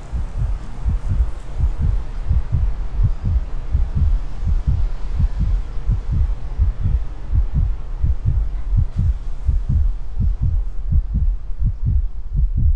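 A heartbeat sound effect: a fast, steady run of deep, loud thumps, several a second, over a low hum.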